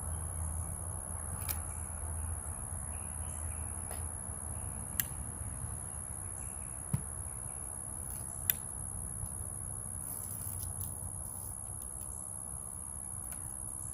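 Steady high-pitched insect chorus over a low outdoor rumble, with a few sharp clicks, the clearest about five, seven and eight and a half seconds in.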